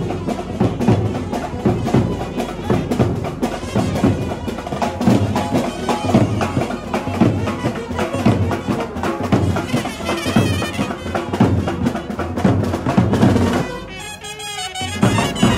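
Street procession band playing: fast, dense drumming with a wind-instrument melody over it. The music briefly drops out near the end and then comes back.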